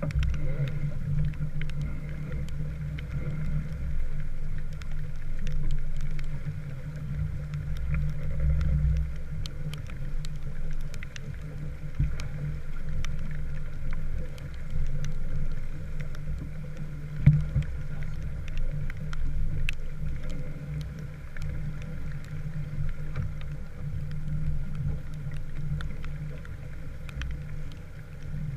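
A small wooden sailboat underway in the rain: a steady low rush of water and wind along the hull, with many scattered light ticks of raindrops and one louder knock about two-thirds of the way through.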